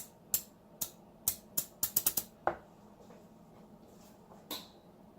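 A hand clamp being ratcheted tight: a run of sharp clicks, about nine in the first two and a half seconds and quickening around two seconds in, then one more click near the end.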